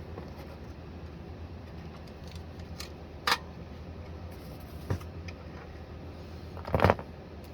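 Unpacking handling noises: a few short knocks and rustles as the battery charger is taken out of its packaging, the loudest cluster near the end, over a steady low background hum.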